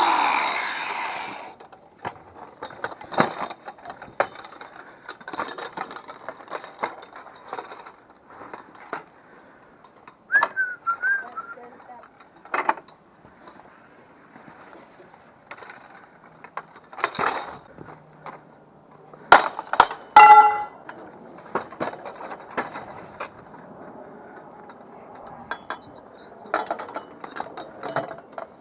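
Scrap metal being handled: scattered knocks and clinks, with one ringing metal clang about twenty seconds in.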